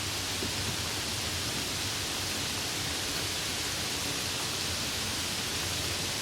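Rain falling steadily in a storm, an even hiss.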